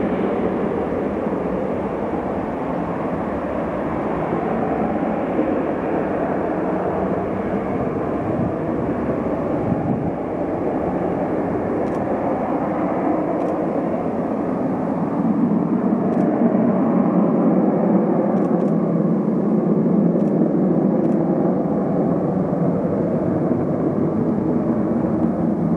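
Jet engines of a Tupolev Tu-134UB-L, its two Soloviev D-30 turbofans, running with a steady rushing roar that grows somewhat louder about halfway through.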